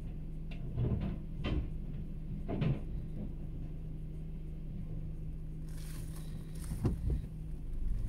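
Rear-loader garbage truck running with a steady low hum while its bin lifter and an emptied plastic wheelie bin give several knocks and clunks in the first few seconds. Later comes a short hiss, more knocks, and the engine gets louder near the end as the truck pulls away.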